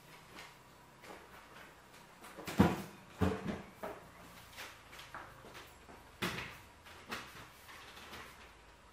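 Small wooden stools and a low wooden table being moved and set down, giving a series of separate wooden knocks and bumps. The loudest knock comes about two and a half seconds in, with a few more over the next second, and another two around six and seven seconds in.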